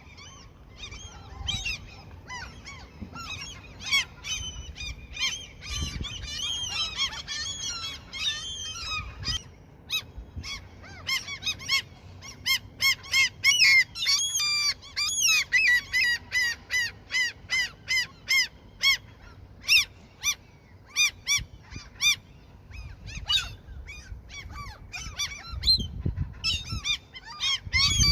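Gulls calling repeatedly, several overlapping, with a fast run of short, evenly repeated calls through the middle that is the loudest part.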